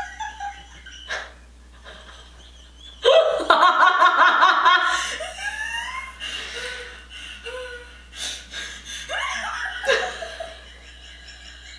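High-pitched wheezing laughter in fits, loudest in a burst of rapid, breathy pulses about three seconds in, with shorter rising squeals of laughter later.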